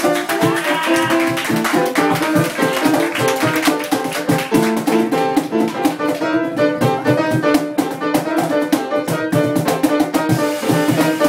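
Small live jazz group playing: an upright piano with a light, steady percussion beat, and a bowed violin line in the first couple of seconds before the violin drops out.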